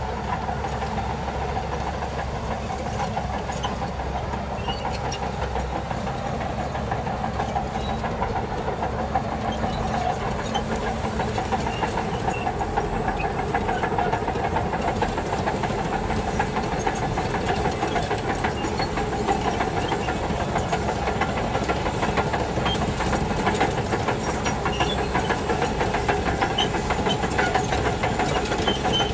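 Shantui DH17C2 bulldozer working, its diesel engine running steadily, getting slightly louder over the second half.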